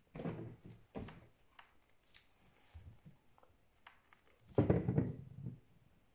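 Handling sounds of pens and markers on a tabletop: short knocks and rustles as they are picked up and set down, with faint scratching of writing on paper. The loudest cluster of knocks and rustling comes about four and a half seconds in.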